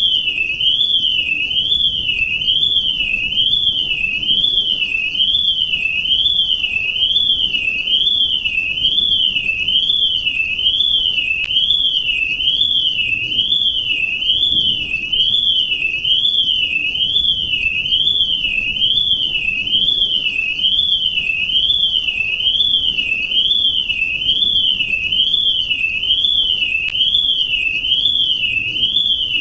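Electronic alarm: one high-pitched tone sweeping steadily up and down, about once a second, without a break.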